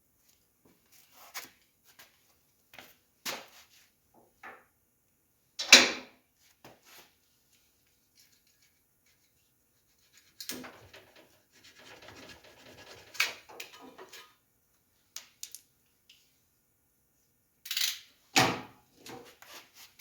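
Handling noises in a tire repair shop: scattered knocks and clatter of tools and parts being picked up and set down, with one loud knock about six seconds in. In the middle comes a few seconds of scratchy rubbing, and there are two sharp knocks near the end.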